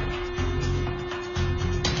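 Background music with a pulsing bass beat and a held note.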